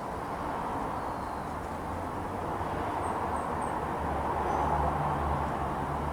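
Steady hum of road traffic from a busy nearby road, with a lower engine drone swelling about four seconds in as a vehicle passes. Three faint, quick, high bird chirps just after three seconds.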